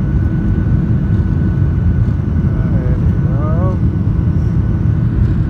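Airliner's jet engines during the takeoff roll, heard from inside the cabin: a loud, steady rumble with a thin high whine running over it.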